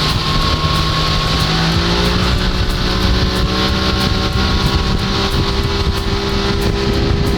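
A 1992 60 hp Johnson two-stroke outboard running under way. Its pitch rises about two seconds in as the throttle is opened, then holds steady at high revs, over a steady rushing noise.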